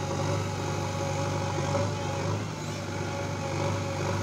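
JCB backhoe loader's diesel engine running steadily under load while the backhoe arm digs and swings, with a steady whine above the drone.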